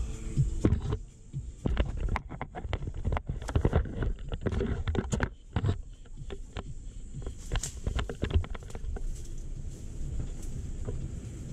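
Low rumble of a vehicle crawling along a rough forest track, with irregular knocks and rubbing on a selfie-stick camera's microphone, thickest through the middle and easing near the end.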